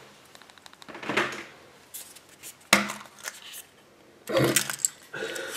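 Hands handling and opening the yellow plastic capsule from a Kinder Surprise egg: a few soft clicks, a sharp click about three seconds in, then a longer rustle of the folded paper insert and small plastic toy parts near the end.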